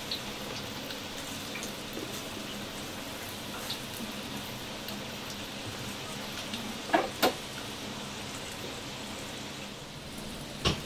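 Steady hiss of food frying, with two quick metal clinks about seven seconds in and another near the end.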